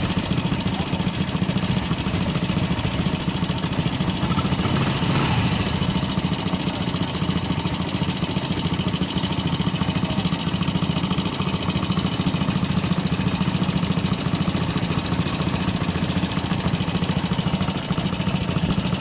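Motorcycle engine running steadily, with its rapid firing pulses under an even hiss of wind and road noise.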